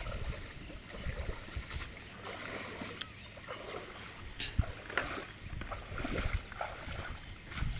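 Irregular splashing and sloshing of water with low thuds, as a fishing net is worked in a canal.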